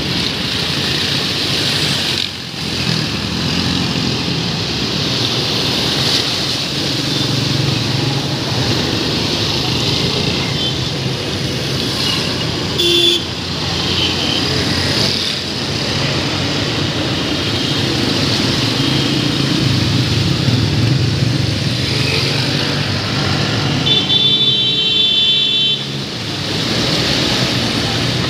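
Road traffic driving through a flooded street: engines of cars, motorcycles and auto-rickshaws running, with tyres swishing and splashing through standing water. A horn toots briefly about halfway through and sounds again for a couple of seconds near the end.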